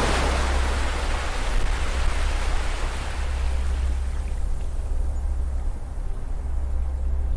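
Ocean surf: a wave washes in, its hiss loudest at the start and fading away over the next few seconds, over a steady low rumble.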